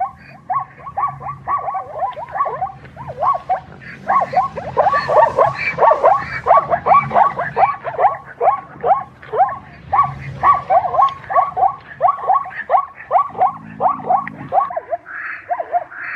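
Zebra giving its barking, yelping call: a fast run of short, high yelps, about three or four a second, kept up without a break.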